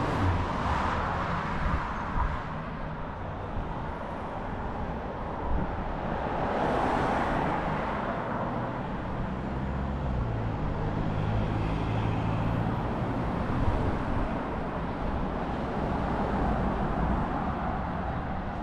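City street traffic: cars passing, their tyre and engine noise swelling and fading as each goes by, with a vehicle's engine running low and steady near the middle.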